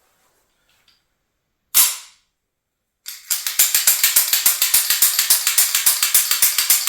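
M1911 .45 ACP pistol's slide being worked on its frame to spread freshly applied lubricant: one sharp metallic snap about two seconds in, then from about three seconds a rapid run of metal clicks at roughly ten a second.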